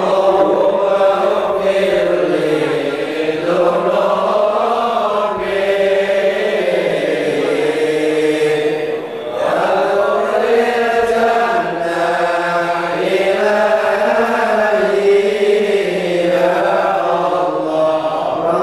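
A group of men chanting Arabic Maulid verses together in the slow Javanese mauludan style, the melody gliding slowly up and down. There is a short dip in loudness about nine seconds in.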